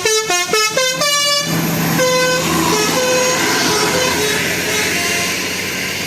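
Bus telolet musical air horn playing a quick tune of short notes that jump in pitch, ending on a longer note about a second and a half in. After it, the bus's engine runs on under a few fainter, separate horn notes.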